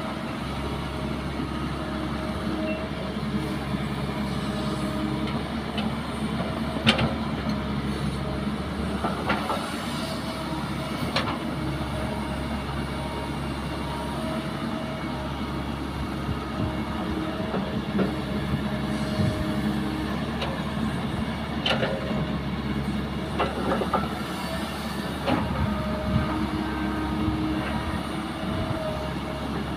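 Diesel engine of a Caterpillar crawler excavator running steadily as the machine digs soil with its bucket, with a few sharp knocks scattered through.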